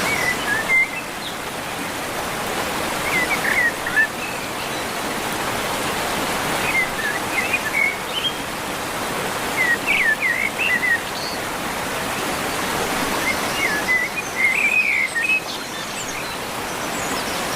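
Steady rush of falling water from a waterfall, with small birds chirping in short clusters every few seconds above it.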